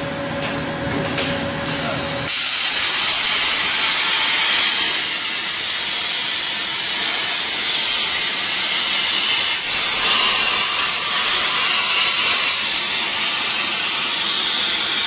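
Hypertherm HT2000 plasma torch on a CNC table cutting 1/2-inch mild steel with oxygen plasma. After a steady hum, the arc fires about two seconds in with a sudden loud, steady hiss that holds through the cut, then cuts off abruptly at the end as the part is finished.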